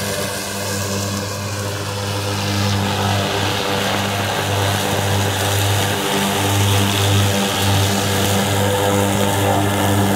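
Remote-controlled robotic mower cutting through tall weeds, its motor running with a steady droning hum that wavers slightly as it works through the growth.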